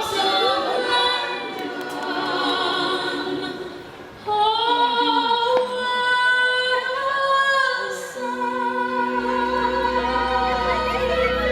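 Show soundtrack music with a choir and a female voice singing long held notes; it dips briefly and comes back in sharply about four seconds in.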